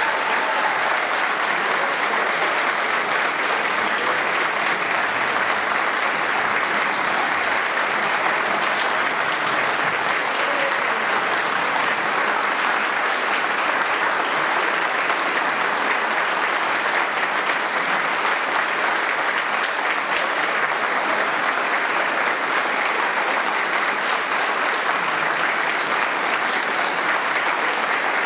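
Large audience applauding: dense, steady clapping at an even level.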